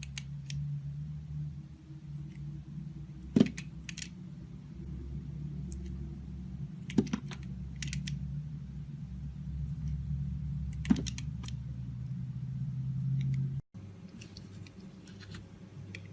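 Knife cutting into a bar of soap: a sharp, crisp crack about every three to four seconds, with fainter crumbly ticks between, over a steady low hum.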